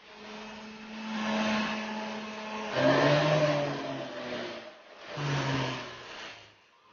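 Small rotary tool motor running with a steady hum and hiss, starting suddenly, swelling and easing a few times, then fading out near the end.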